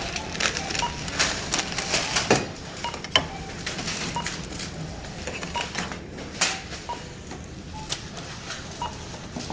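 Supermarket checkout: a barcode scanner gives short beeps about once a second as items are scanned, over the clatter and knocks of groceries being handled.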